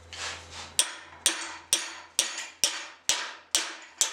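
Hand hammer striking a steel flat-bar bracket clamped in a vise, bending it over: sharp metal-on-metal blows, about two a second, each with a short ring, starting under a second in.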